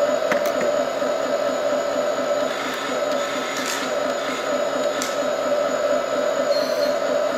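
Electric motors and gearing of a toy RC excavator whirring steadily as its arm and bucket move, with a few light clicks.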